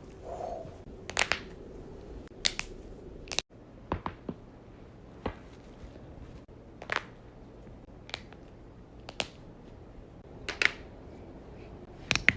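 Human joints cracking: a series of sharp pops, roughly one every second, a few of them coming as quick double pops.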